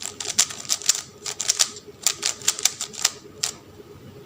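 Rubik's Cube being scrambled by hand, its plastic layers clicking in quick, uneven turns, then stopping about three and a half seconds in.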